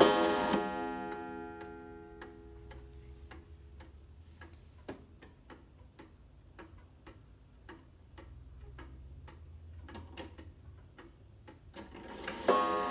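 Pendulum clock movement of an antique Pettibone & Peters ogee wall clock ticking at about two ticks a second. Background music dies away at the start and comes back near the end.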